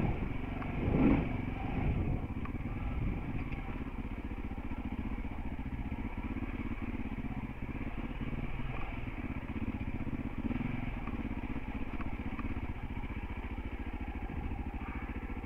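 Off-road motorcycle engine running steadily as it climbs a rocky dirt trail, heard from a helmet-mounted camera, with a few short knocks from the rough ground. It is briefly louder about a second in.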